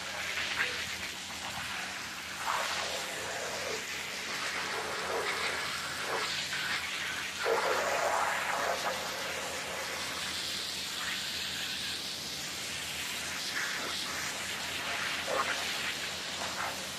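Pressure-washer water jet spraying onto a soapy, soaked rug on a concrete floor: a steady hiss of spray with uneven louder splashing as the jet moves across the pile.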